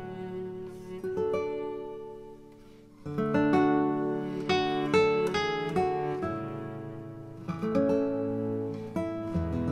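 Background music: acoustic guitar, plucked and strummed. It fades to a softer passage about two seconds in, then louder strummed chords come back about three seconds in.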